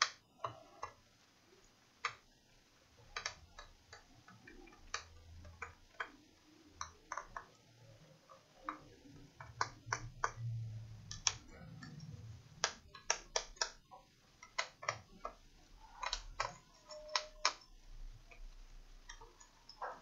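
Irregular sharp clicks and small taps of hands handling parts on an opened laptop's motherboard, some coming in quick pairs and clusters.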